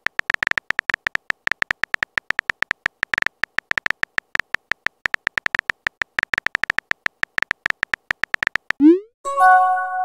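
Synthetic phone-keyboard typing clicks, rapid and irregular, as a text message is typed out. Near the end a short rising blip, then a bright chime of several tones: the chat app's message notification sound.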